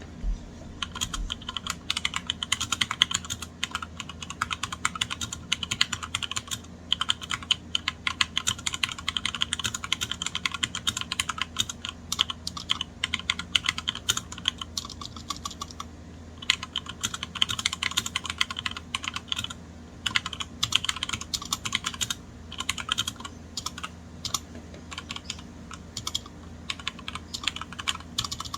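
Continuous fast typing on a HyperX Alloy Origins Core TKL mechanical keyboard with HyperX Double Shot PBT keycaps, a dense stream of key clacks. The typing briefly slackens twice, around the middle and a little after.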